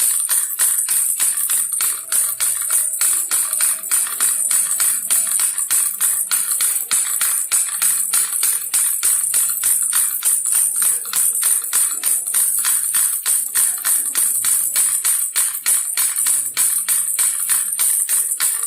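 Baby rattle shaken steadily in a fast, even rhythm, its beads jingling and clattering with every shake.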